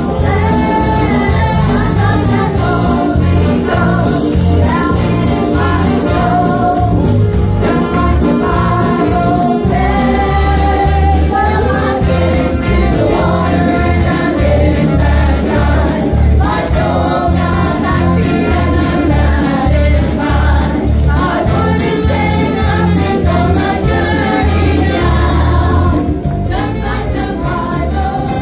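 Live gospel worship music: a congregation and lead singers on microphones singing together over a band with a strong bass line and a steady drum beat. The music softens a little near the end.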